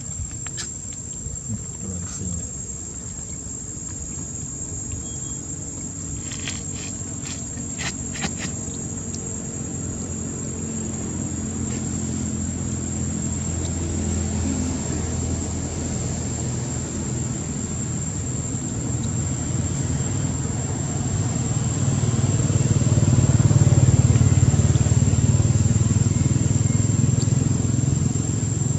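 Steady high-pitched insect drone, with a low motor-vehicle engine rumble that grows louder after about twenty seconds and eases slightly near the end. A few short clicks occur around a quarter of the way in.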